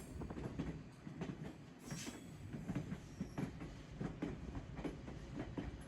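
White Pass & Yukon Route narrow-gauge passenger train running on the track, a steady rumble with frequent irregular clacks and knocks from the wheels and cars.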